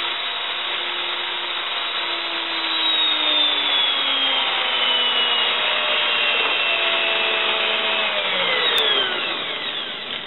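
Half-inch hammer drill in a homemade wooden drill press running and boring into wood, the bit grinding steadily through the stock. About eight seconds in the motor is switched off and winds down, its whine falling in pitch.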